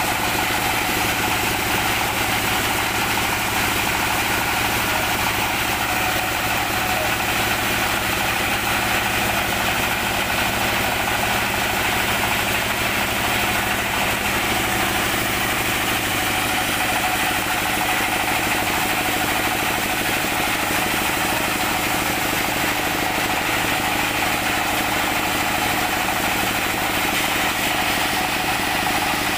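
Band sawmill running steadily with no change in load, a constant machine drone holding several steady tones.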